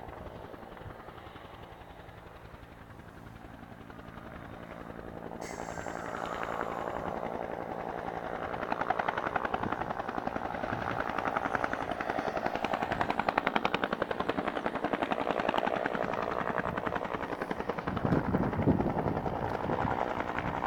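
Bell UH-1 Huey helicopter flying nearby, its engine and rotor growing louder from a few seconds in into a fast, steady rotor beat.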